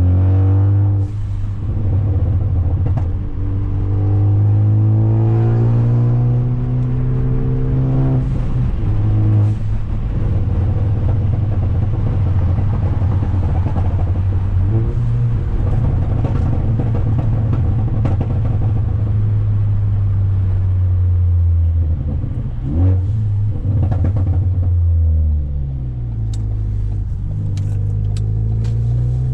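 Turbocharged Ford Focus ST with a catless downpipe and straight-through Flowmaster exhaust, driving with the revs climbing and dropping back several times, then climbing again near the end.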